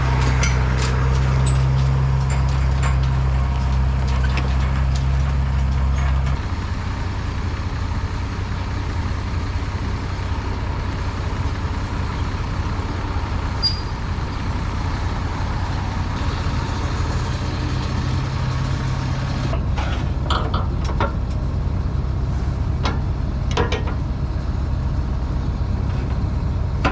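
Farm tractor engine running steadily, louder for the first six seconds and then settling lower, as hay wagons are moved into place. A few sharp clanks come about twenty seconds in.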